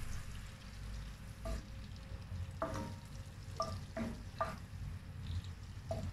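Butter melting and sizzling in hot fat in a pot, stirred with a wooden spoon, with a few short clicks through the middle.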